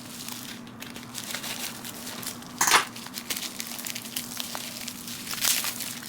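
Plastic packaging crinkling and rustling as a package is opened by hand, with a louder crunch a little under three seconds in and another near the end. A faint steady hum sits underneath.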